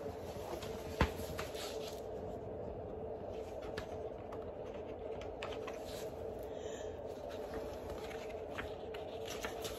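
Faint rustling and light ticks of handling, with one sharp click about a second in, over a steady low hum of room tone.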